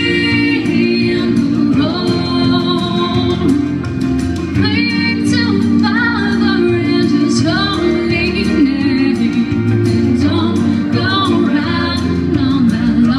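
Young woman singing a country song into a handheld microphone over guitar accompaniment, her voice carried through the stage sound system.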